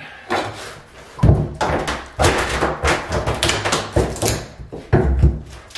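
Steel pry bar working a nailed wooden board off the front of a bathtub: a run of knocks and thuds, with wood and metal scraping, the loudest blows about a second in and near the end.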